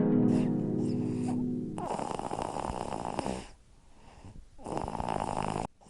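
Cartoon snoring: a long, low, pitched snore over the first two seconds, then two noisy breaths out with a short pause between them, the second cutting off suddenly near the end.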